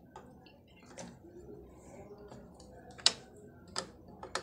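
Three faint, sharp clicks in the second half, against quiet room tone, as a wooden hand lemon squeezer is handled before squeezing.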